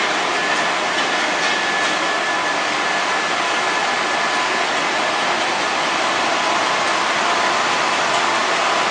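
Glass roller coating machine with its UV curing line running: a steady, even hiss of machinery with a faint high whine held throughout.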